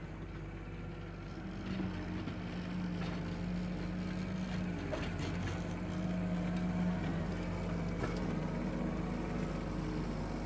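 Tractor engine running steadily while driving a power rake, getting a little louder after about two seconds, with a few sharp ticks and clatters over it.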